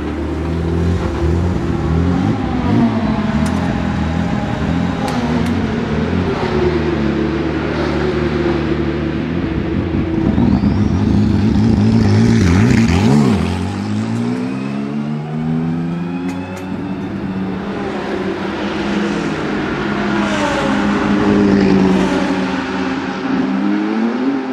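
BMW M4 GT3's twin-turbo 3.0-litre straight-six P58 engine running at low revs, then rising in pitch as the car pulls past about halfway through, the note dropping as it goes by. Its note then rises and falls repeatedly as it drives off down the pit lane.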